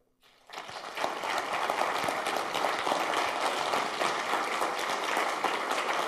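Audience applauding: the clapping starts about half a second in, builds within a second and continues as steady, dense applause.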